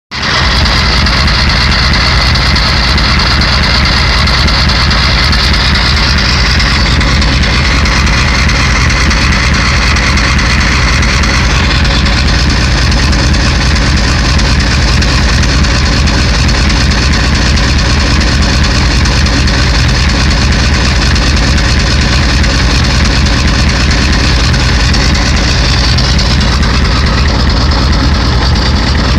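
1991 Ford 7.3 IDI V8 diesel engine idling steadily, a sound the owner takes as the sign of bad injectors.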